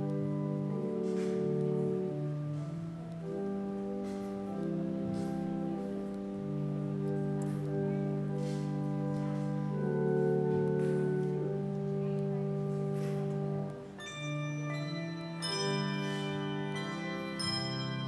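Handbell choir ringing a piece on brass handbells: held chords of bell tones that change every second or two. After a brief dip about fourteen seconds in, the sound turns brighter with more high ringing.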